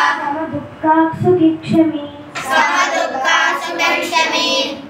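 A group of children chanting a Sanskrit verse together in a sing-song recitation, the phrases rising and falling in pitch.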